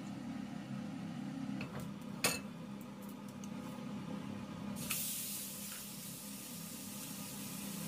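A steady low hum with a sharp tap about two seconds in; then, nearly five seconds in, a steak laid into a hot cast-iron skillet of oil and garlic starts sizzling and keeps on sizzling.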